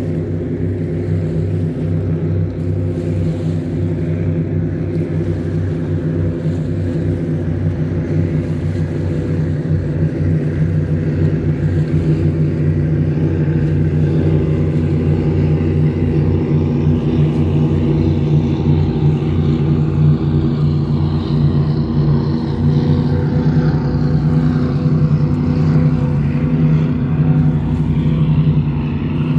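Steady low engine drone with an even hum, growing gradually louder.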